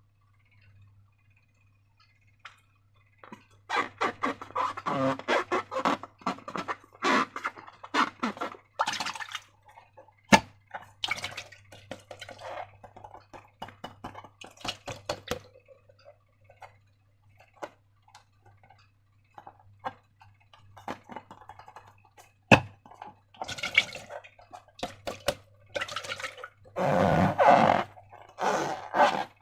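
Slime being squeezed and handled, with wet squelches and sticky crackling clicks in irregular bursts and a few sharp snaps, over a faint steady low hum.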